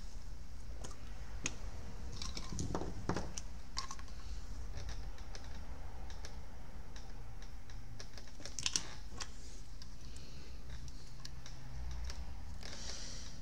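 Scattered light clicks and taps of small hand tools being handled at an electronics repair bench, over a steady low hum.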